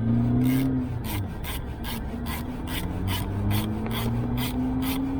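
Rhythmic rasping strokes, about three to four a second, from a hand tool turning an armrest screw on a seat, over a low, slowly wavering hum.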